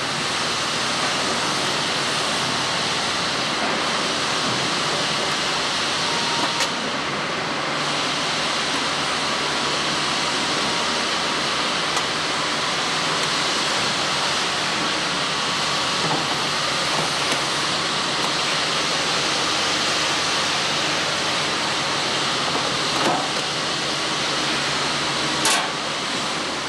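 Steady, even rushing noise, with a few faint clicks through it and a sharper knock near the end.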